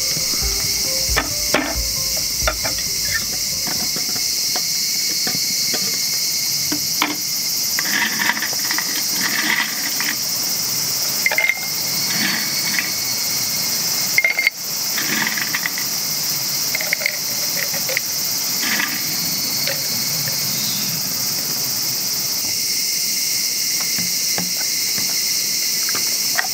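Insects chirring in a steady high-pitched drone throughout, with scattered clinks and knocks of ice cubes being dropped one by one into a tumbler and bottles being handled; the loudest knock comes about halfway through.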